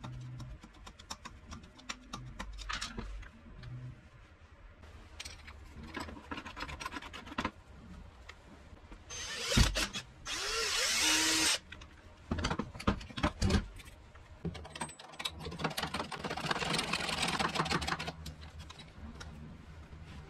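Cordless drill motor running for about two seconds near the middle, with a rising whine as it spins up, then running again for a longer, quieter stretch later. Before and between, small metal clicks and scrapes come from the keyless drill chuck and a screwdriver being handled.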